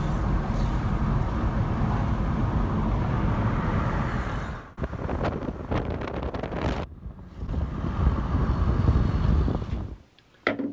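A car driving along a street, heard from inside: steady road noise with a deep rumble, dipping briefly about five seconds in. Near the end it cuts off to quiet, followed by a single short knock.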